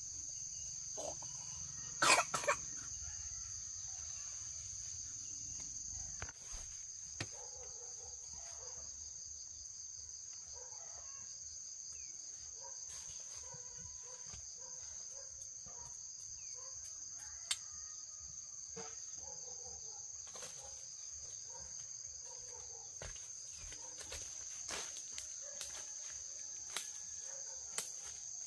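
Steady high-pitched drone of insects, with chickens clucking on and off and a few scattered clicks and knocks. A brief sharp sound about two seconds in is the loudest.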